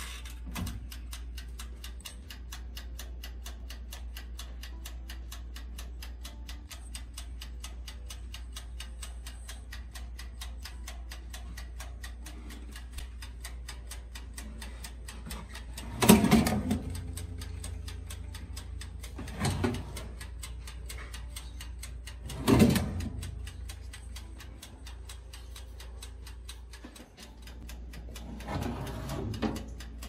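Mechanical wind-up timer of an Insignia NS-TO15SS0 toaster oven ticking fast and evenly as it counts down the toast time. Three loud knocks come in the second half.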